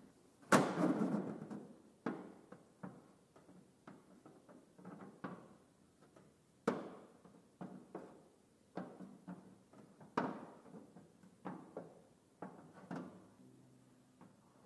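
Knocks and taps of a metal square being handled against a thin hand-formed aluminium car body panel. The loudest is a hollow, ringing thump about half a second in, followed by about a dozen lighter clicks and knocks.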